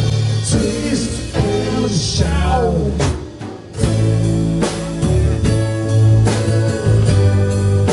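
Rock band music with electric guitar, bass and drums. A sung vocal line runs through the first three seconds, the sound drops briefly around the middle, then the band plays on.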